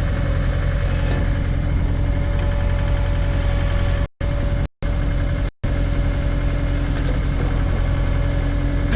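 Case/Davis D100 backhoe engine running steadily. The sound cuts out completely three times in quick succession, about four to five and a half seconds in, from glitches in the corrupted recording.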